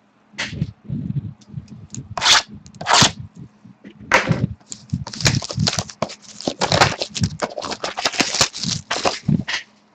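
Plastic wrapping crinkling and tearing and cardboard being handled as a sealed hobby box of trading cards is opened and its packs are taken out. It starts with a few separate sharp crackles and becomes dense continuous crinkling about halfway through.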